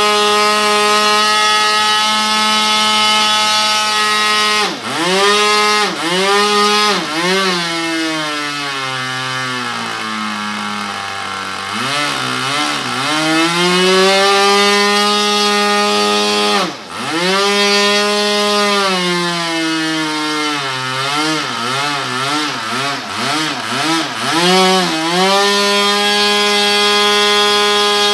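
ASP .46 two-stroke nitro glow engine running at high speed with its throttle worked by hand: it is cut back and reopened several times, slows to a low idle for a couple of seconds near the middle, then is blipped rapidly up and down before settling back to a steady high speed near the end.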